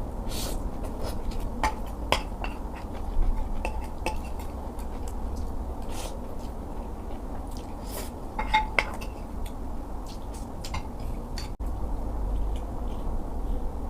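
Cutlery clinking and scraping against a bowl while eating, with a scatter of sharp ticks, a few ringing briefly, over a steady low hum.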